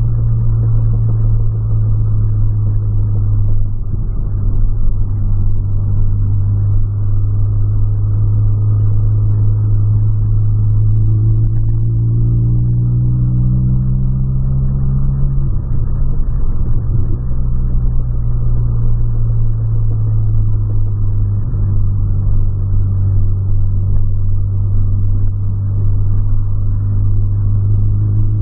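Volkswagen Polo's engine and road noise heard from inside the cabin while driving: a steady low drone. Around the middle it rises in pitch as the car speeds up, briefly wavers, then settles back to a steady drone.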